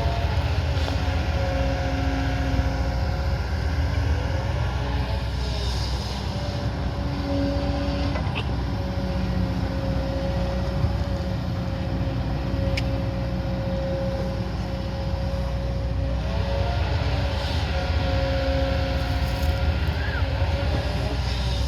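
A heavy earthmoving machine's engine running steadily under load, with a steady whine over it that now and then briefly rises and falls in pitch.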